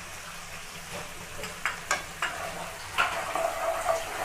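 Ginger-garlic paste and red chili powder frying in butter in a kadhai, sizzling, while a spoon stirs and scrapes the pan. There are a few knocks of the spoon on the pan in the middle, and about three seconds in the stirring and sizzle get louder.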